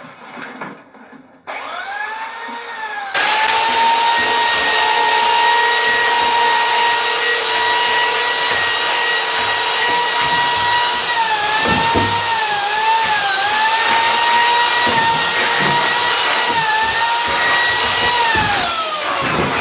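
Chainsaw running flat out with a steady high whine, its pitch dipping several times in the middle as it bites into what it is cutting, then winding down near the end.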